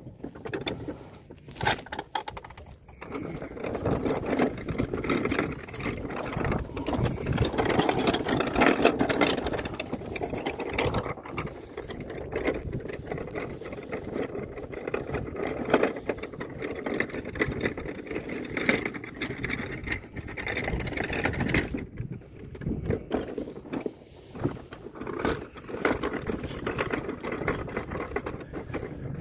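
Steel-framed deer cart rattling and clattering as it is pulled over rough ploughed ground, easing off briefly about three-quarters of the way through.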